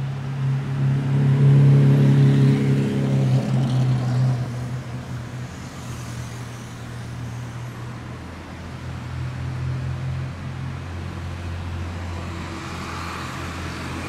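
Lamborghini Aventador's V12 engine running at low revs as the car drives slowly in traffic, loudest in the first few seconds as it passes close, then steadier and quieter as it moves away, with the hum of surrounding traffic.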